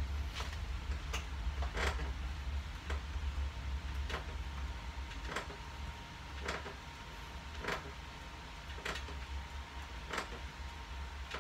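A man breathing out sharply through pursed lips, one short breath for each leg-lift rep, about one every second, around ten in all, over a low steady hum.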